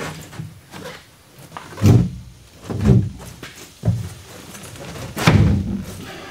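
Hollow fiberglass tub-and-shower unit being shifted into place on a wooden platform: a few dull thunks with scuffing in between as it is worked back and forth.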